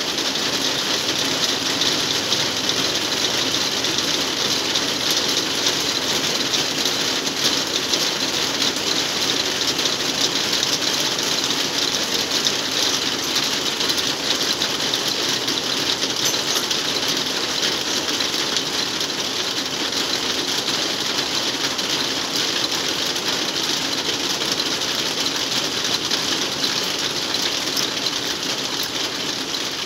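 Heavy rain pouring onto a corrugated metal roof: a loud, steady hiss.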